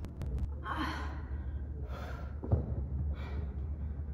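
A person breathing hard from exercise, a sharp breath about every second, over a steady low hum. A single thump about two and a half seconds in.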